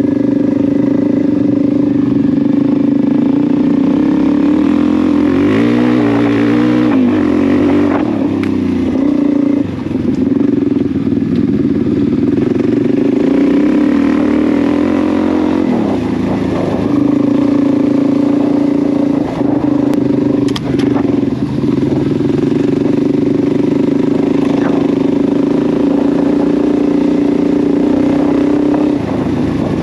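Suzuki DR-Z400's single-cylinder four-stroke engine running under way on a dirt trail, heard close up from the bike, its revs rising and falling with the throttle about six to nine seconds in and again around sixteen seconds. A couple of sharp knocks come about twenty seconds in.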